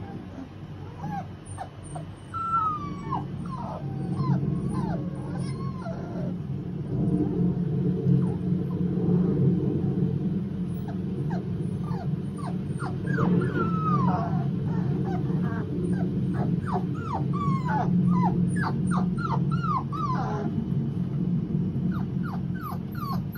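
Australian Shepherd puppies whimpering and squealing: many short, high calls that slide up and down in pitch, scattered at first, then coming thick and fast in the second half as the puppies crowd round their mother. A steady low rumble runs underneath.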